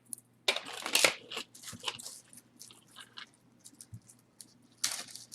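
Plastic packaging crinkling and rustling in short irregular bursts as a jewelry piece is handled.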